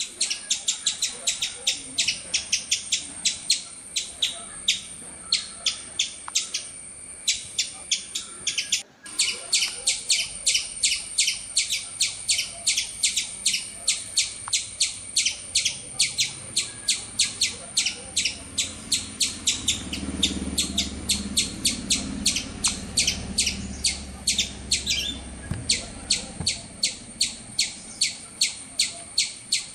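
A small bird chirping fast and evenly, short high chirps about three or four a second without a break. About two-thirds of the way through, a low rumble sits under the chirps for several seconds.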